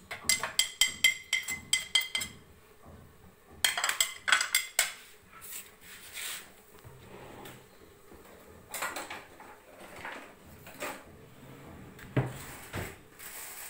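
Crockery clattering: a ceramic plate tapped and knocked against a bowl and spoon as spices are shaken off it, a quick run of ringing taps for about two seconds. A second short cluster of clinks comes about four seconds in, then a few scattered knocks.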